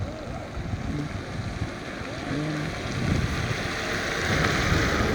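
Wind buffeting the microphone outdoors, a rushing, gusty noise that grows louder about three seconds in.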